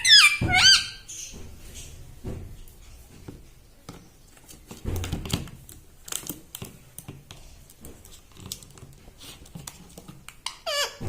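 A ring-necked parrot gives short whistled squawks in the first second and starts calling again near the end. In between there are soft scattered clicks, taps and a few dull thuds.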